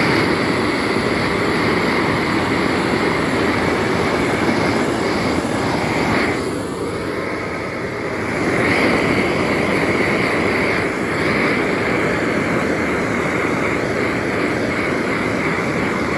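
Gas blow lamp burning with a steady, loud rushing hiss that dips briefly about six seconds in and then comes back.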